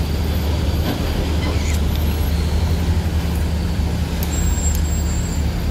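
Engines of loaded cargo trucks and a pickup running as they move off slowly, a steady low drone.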